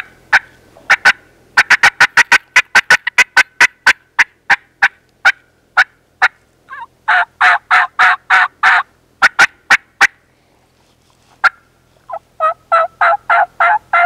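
Touch Point three-reed cutter diaphragm turkey mouth call (heavy top reed, two thin reeds below) run aggressively: a fast string of sharp cutts, about five a second, then a run of loud yelps about seven seconds in, a few more cutts, and another yelp run near the end.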